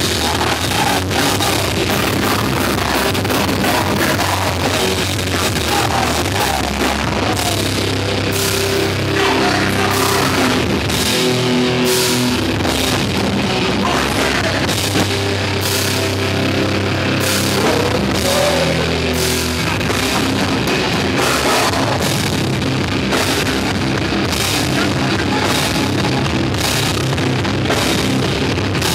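Heavy rock band playing live and loud: a pounding drum kit with regular cymbal hits over amplified instruments, with a vocalist's voice in places.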